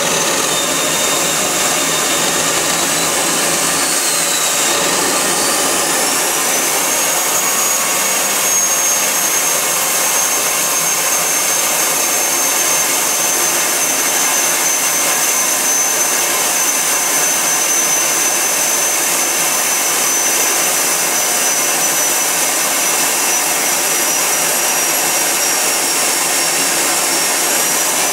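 Homemade turbocharger-based gas turbine running on diesel: a steady loud rushing roar with a high whine that rises in pitch about five seconds in, then holds steady. Near the end the whine dips slightly and climbs again.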